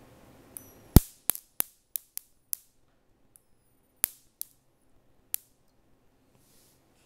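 Sharp snapping cracks of high-voltage sparks jumping from the output of a 5 kV Cockcroft-Walton voltage multiplier: about nine irregular snaps over four seconds, the loudest about a second in, then a few more spaced out.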